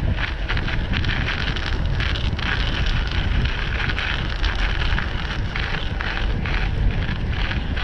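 Wind noise on the microphone of a moving bicycle-mounted camera, a steady low rumble, with a crackling hiss of the tyres rolling over a thin layer of snow on pavement.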